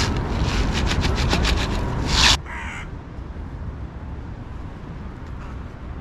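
Crows giving harsh, rapidly pulsed calls over a steady low rumble, stopping abruptly about two and a half seconds in; a quieter low rumble remains after.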